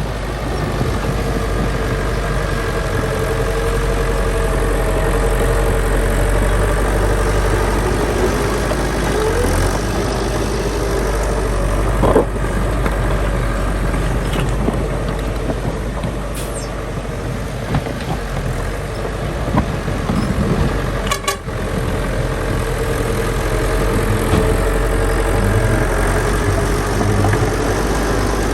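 Heavy diesel engine of construction machinery running steadily under load, with a sharp knock about twelve seconds in.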